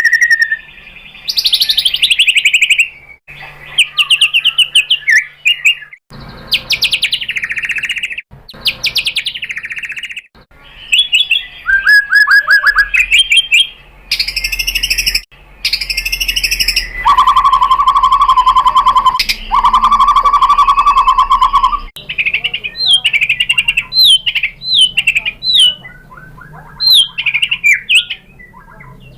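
White-rumped shama singing a varied, loud song: rapid trills and down-slurred whistles, with a buzzy phrase held for a few seconds in the middle. The phrases break off abruptly, as in a spliced recording.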